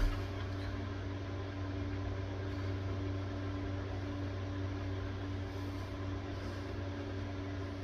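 Electric fan running with a steady hum and a whoosh of moving air, with a short knock right at the start.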